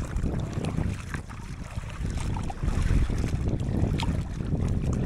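Wind rumbling on the microphone over water splashing and lapping against a bamboo raft as it moves through the sea, with scattered small splashes.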